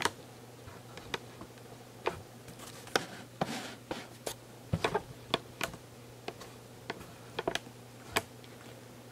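Scattered small clicks and taps of hands handling a steel ruler, chalk and leather on a workbench, with a soft scratchy sound or two, over a faint steady hum.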